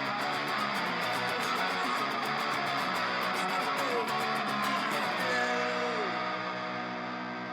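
Background music led by strummed electric guitar over a steady beat, the high percussion dropping out about five seconds in.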